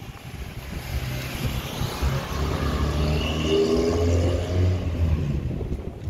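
A car driving past close by, its engine hum swelling over a few seconds and then falling away near the end.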